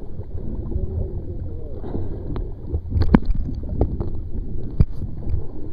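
Steady low rumble with four sharp knocks on the ski-mounted camera about two, three, four and five seconds in, as the ski and camera are handled, with faint voices early on.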